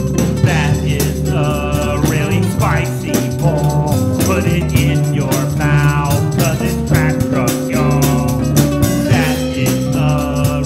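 Recorded band music: a steady drum beat and bass line under a melodic lead that comes in repeated bending phrases.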